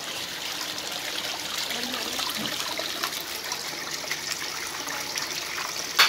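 Water splashing and trickling steadily down a small homemade cement fountain into its basin.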